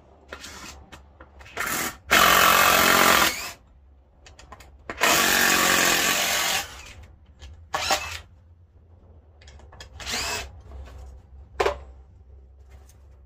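Power drill backing out screws: two runs of about a second and a half each, with a few short spurts before and after.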